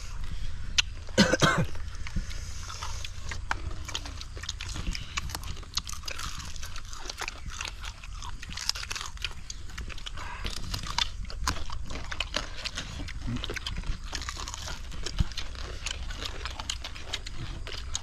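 Several people chewing and crunching fried field rat, a steady scatter of small crunches and mouth clicks over a low rumble, with one louder burst about a second in.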